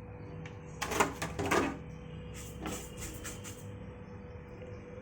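Fennel and cumin seeds rattling and clattering against a dry pan. The sound comes in two louder clusters about a second in and a quieter patter around three seconds in.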